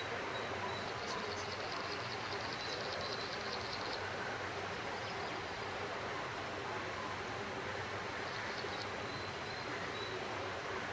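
Steady outdoor background noise with a thin high whine through most of it, and faint rapid high-pitched chirping about a second in and again briefly near the end.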